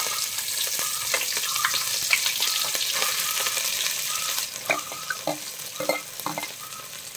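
Diced cabbage sizzling as it drops into hot oil in a wide metal pan, with scrapes and clicks of a metal spatula pushing it off a steel plate. The sizzle eases after about four and a half seconds.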